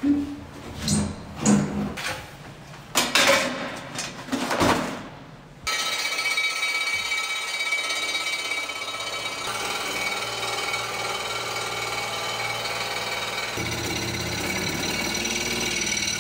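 Several loud knocks and scrapes as a long, old metal water pipe is handled. About six seconds in, a power tool starts and runs with a steady buzz, cutting at the stubs of the old water pipes at floor level.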